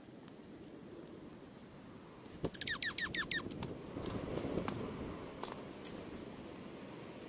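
A small songbird calls a quick run of about six sharply falling chirps a little before the middle, then gives a single short, very high note near the end. A soft rushing sound swells in between.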